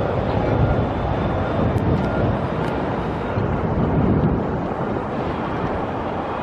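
Steady low rumble of motor vehicles, with wind buffeting the microphone.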